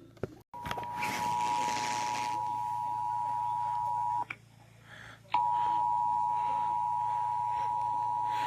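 Emergency Alert System two-tone attention signal, a steady dual tone near 853 and 960 Hz, broadcast for a monthly test. It starts about half a second in, cuts off about four seconds in, and starts again a second later.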